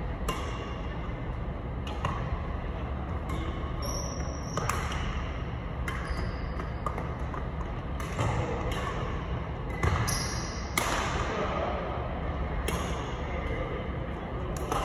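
Badminton rally: rackets hitting a shuttlecock about every one to two seconds, each hit a sharp crack that rings briefly in a large hall, over a steady low hum.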